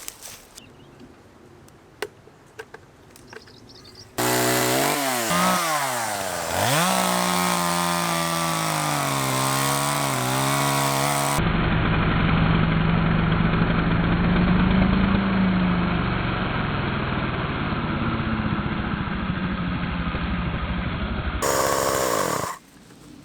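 Small two-stroke petrol chainsaw running at high revs while cutting fallen willow. It starts suddenly about four seconds in, dips in pitch briefly, then holds a high, fairly steady note through a couple of abrupt edits, and cuts off near the end. A few faint clicks come before it.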